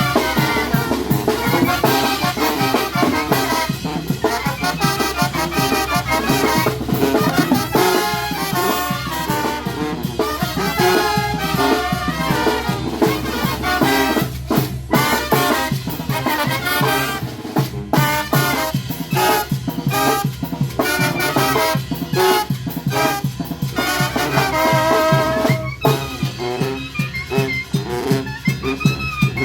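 Mexican banda de viento playing an upbeat tune, with trumpets and trombones carrying the melody over a steady percussion beat.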